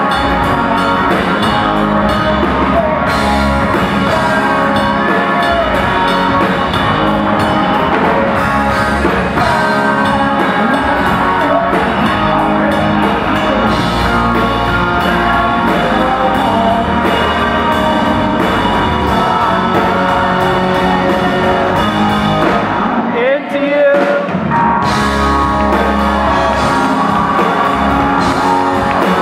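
Live rock band playing: a male lead singer over acoustic and electric guitars, bass, keyboards and drums. About 23 seconds in the band drops away for a moment, then comes back in full.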